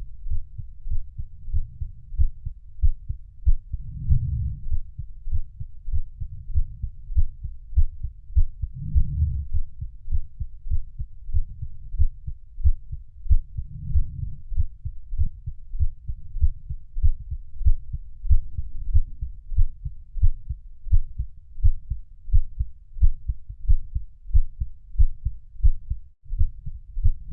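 Heartbeat: a steady rhythm of low, dull thumps, with a low swell coming up about every five seconds.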